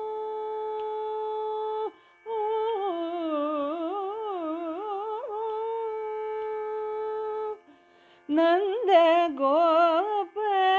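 Solo voice singing Carnatic music in raga Sankarabharanam without words: a long held note, then a passage of gliding, oscillating notes, and after a short break near the end a louder phrase with quick pitch shakes (gamakas).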